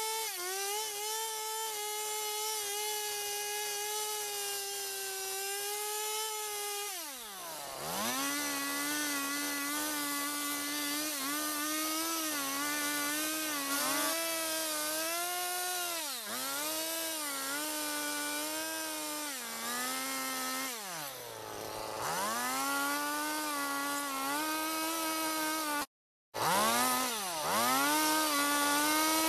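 Stihl chainsaw running at high revs and cutting into a block of wood. The engine note holds high and even at first, then drops and stays lower with small wavers as the chain bites, sagging and picking up again several times. A split-second dropout comes near the end.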